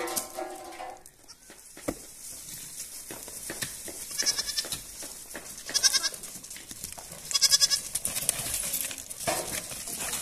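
Goats bleating: one bleat right at the start, then three high, quavering bleats a second or two apart.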